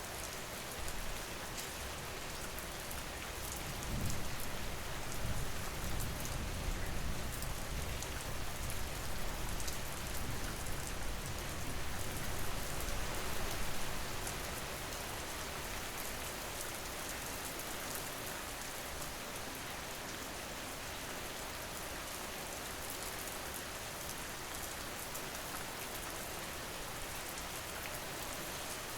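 Steady rain with fine drop ticks, and a low rumble swelling from about four seconds in to about fourteen seconds in.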